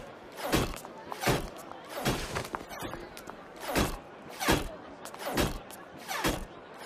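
Heavy mechanical footsteps of Atlas Knight robot soldiers marching in a steady rhythm, about one step every three-quarters of a second.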